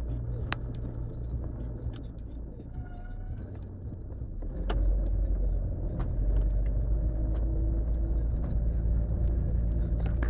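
A small motor vehicle's engine running, with low rumble, growing louder about halfway through and holding steady.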